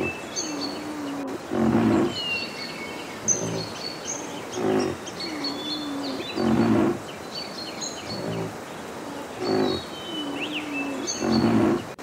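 Rhinoceros calling: loud low grunting calls repeated about every one and a half to two seconds, with a short wavering moan between them. Small birds chirp throughout.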